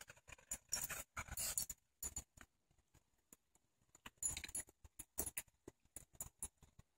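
Two dogs playing: irregular flurries of claws clicking and scuffing on stone paving and collar tags jingling, about a second in, again around four seconds in, and through the sixth second.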